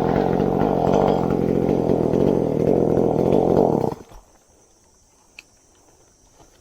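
Chainsaw running steadily, then cutting off suddenly about four seconds in, followed by a few faint clicks.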